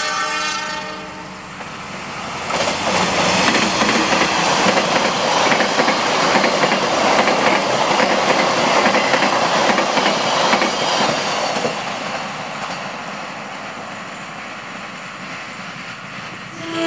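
A diesel locomotive's horn trails off at the start, then a passenger train runs past at speed, its wheels clattering over the rail joints for several seconds before the noise dies down to a rumble. Near the end another locomotive sounds its horn.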